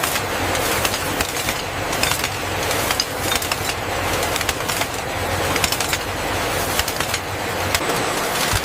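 Processing machinery running steadily, with a continuous noisy din and many irregular clicks and rattles.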